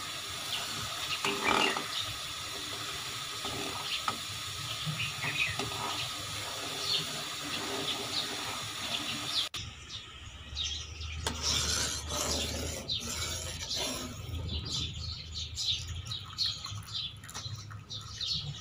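Thick mulberry syrup bubbling and popping in a pot as it cooks down, the sound changing abruptly about halfway through.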